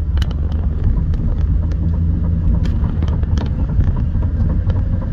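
Road noise from a moving 2010 Toyota Prius: a steady low rumble of tyres and wind, with scattered light ticks.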